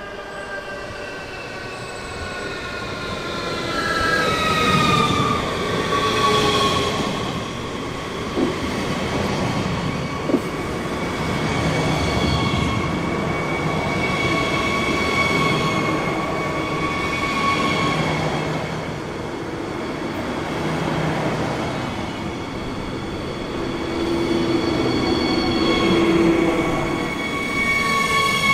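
A train running past, with a whine that falls in pitch over the first few seconds and then settles into steady high-pitched tones that swell and fade over a continuous rolling rumble.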